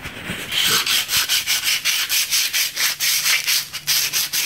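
Sandpaper rubbed by hand over the 2K-primed steel tube of a rear axle housing in quick, even back-and-forth strokes, starting about half a second in. This is the primer being sanded flat so that it fills the rust pits.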